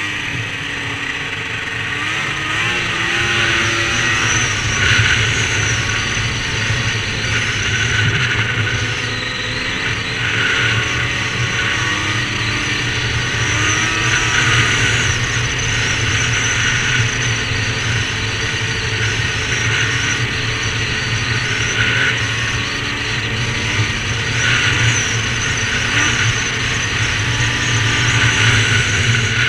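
Two-stroke Ski-Doo snowmobile engine running at speed under a rider's throttle, its pitch rising and falling as the throttle changes.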